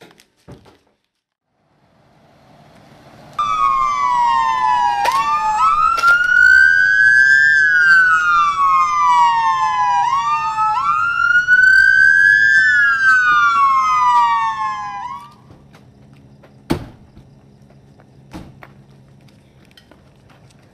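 Police-style siren wailing in slow sweeps, its pitch rising and falling about every five seconds, starting a few seconds in and stopping suddenly after about twelve seconds. Two sharp knocks follow near the end.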